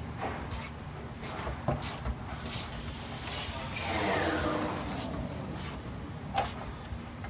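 Sparse, irregular clicks and knocks of a hand wrench working the front eye bolt of a Mustang rear leaf spring as it is tightened. A falling whine sounds in the background about halfway through, over a steady low shop hum.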